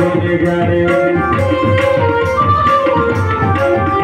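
Instrumental interlude of a devotional bhajan: a tabla plays a steady beat under a sustained keyboard melody, with no singing.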